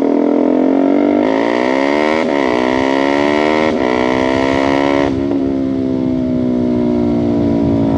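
KTM RC250's single-cylinder engine accelerating hard through the gears, its pitch rising and dropping back at two upshifts about two and four seconds in. After about five seconds the throttle eases and the engine runs at a steady, slowly falling pitch, with wind noise underneath.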